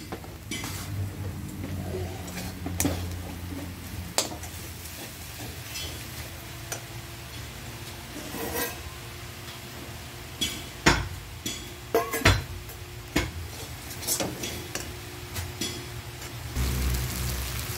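Metal spatula scraping and clinking irregularly against a metal kadai as chilli powder and spices are stirred into frying mushrooms, with a low sizzle underneath. The sharpest clinks come in the second half.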